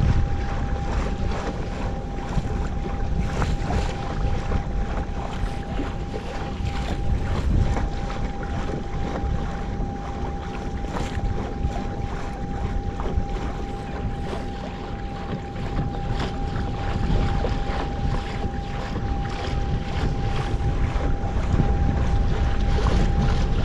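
Wind buffeting the microphone over water slapping and splashing against a kayak. A thin steady whine runs underneath.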